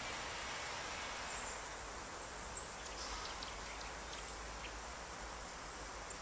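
Steady outdoor background hiss, with a few faint, brief high chirps or ticks near the middle.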